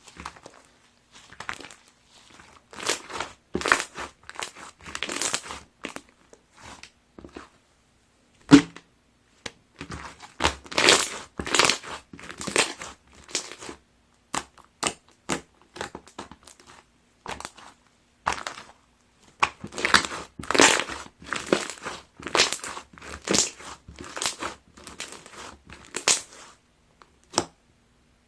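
Clear slime mixed with heart-shaped ring toppings being squished and worked by hand: irregular bursts of sticky crackling and popping with short pauses between them, and one sharp knock about eight seconds in.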